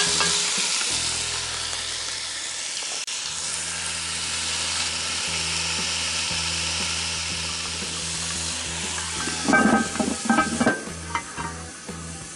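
Turkey breast chunks sizzling as they brown in hot oil in a cast iron Dutch oven, a steady frying hiss with stirring. About ten seconds in, a short run of clattering from the utensil and pot.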